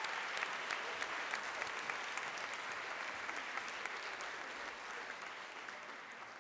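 Auditorium audience applauding, the clapping slowly dying away toward the end.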